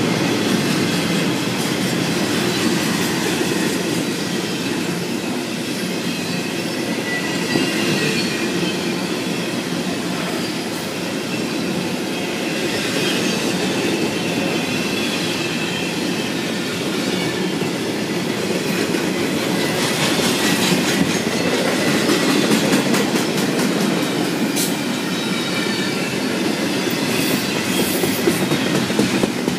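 Double-stack container freight cars rolling past: a steady rumble of steel wheels on rail, with thin wheel squeal at times and a few sharp clicks about two-thirds of the way through.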